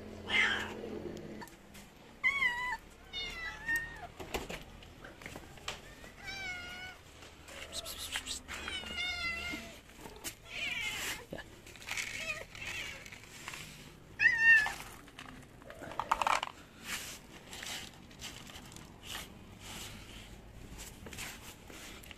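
Stray cats meowing over and over, short rising and falling calls that stop about three quarters of the way through, with scattered sharp clicks and taps among them.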